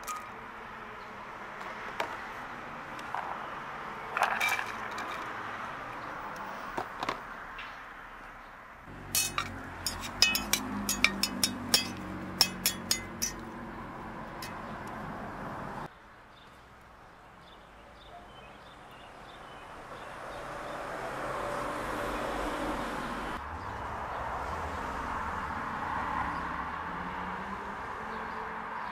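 Food sizzling in hot oil in an enamelled pot, with a run of sharp clinks from a metal turner stirring against the pot about a third of the way in.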